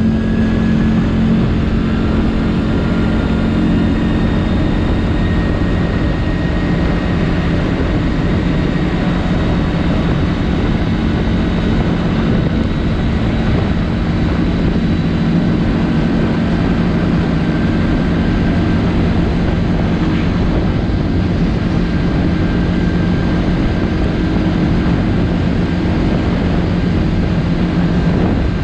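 CFMOTO 450L ATV's single-cylinder engine running steadily while the quad cruises along, a loud even drone with no revving or gear changes.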